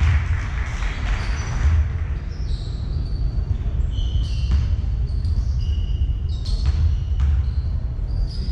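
Basketball game in a sports hall: sneakers squeak repeatedly in short high chirps on the court, and the ball thuds a few times, over a steady low rumble.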